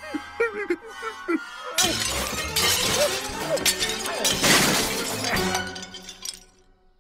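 Cartoon dog whimpering in short rising-and-falling whines over orchestral music. From about two seconds in, a loud stretch of clattering, shattering-like noise with many sharp clicks runs for about three and a half seconds, then fades.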